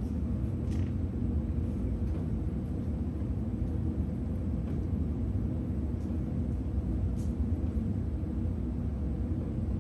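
Steady low rumble, with a few faint clicks scattered through it.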